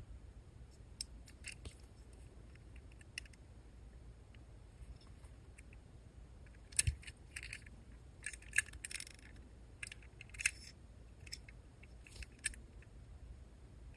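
Light clicks, taps and small scrapes of fingers handling a Tomica die-cast toy truck, metal body with plastic parts, as it is turned over in the hands. The clicks are faint and scattered, and come thicker in the second half.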